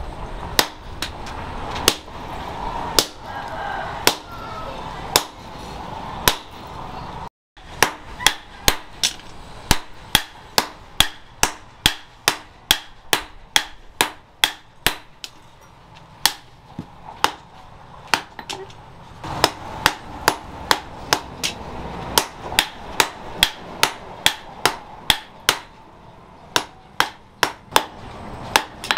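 Hammer blows on glowing-hot steel against an anvil as a knife blade is forged out, sharp strikes coming about one to two a second, with a brief break in the sound about a quarter of the way in.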